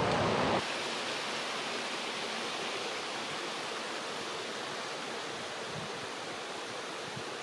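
Rushing creek water over rocks, close and louder for the first half-second, then cut off suddenly and replaced by a quieter, steady rush of flowing water.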